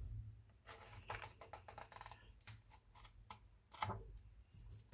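Pages of a hardbound book being flipped by hand: a faint run of quick paper flicks and taps, with a louder flick about four seconds in.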